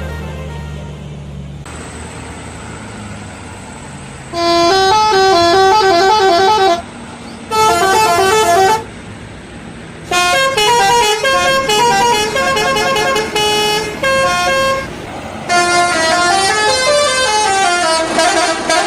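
Indonesian bus telolet horn playing quick stepping tunes in four loud bursts, starting about four seconds in, with short pauses between them. A low rumble fades away in the first two seconds.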